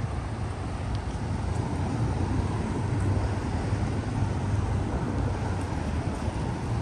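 Steady low rumble of city traffic.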